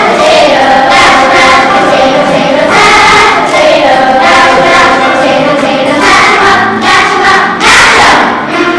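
Children's choir singing together, with long held notes.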